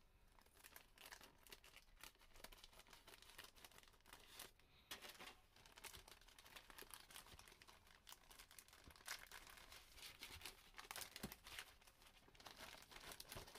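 Faint crinkling and crackling of a thin clear plastic bag as hands pull it open around a plastic model-kit sprue, with scattered small crackles throughout.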